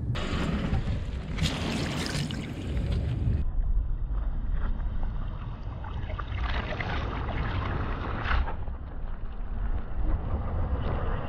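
Car tyre rolling slowly over blocks of soaked floral foam, crushing them and squeezing water out, with crackly stretches over a steady low rumble.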